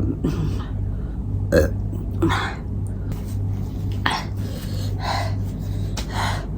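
Close-miked mouth sounds of a person eating spicy instant noodles: short, burp-like noises about once a second, over a steady low hum.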